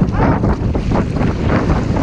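Wind buffeting the microphone over water rushing and splashing along an outrigger canoe's hull as it is paddled through chop.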